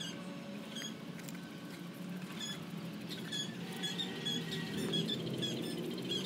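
Repeated short, high-pitched chirps or squeaks, coming irregularly and in quick runs of several a second, over a steady low hum.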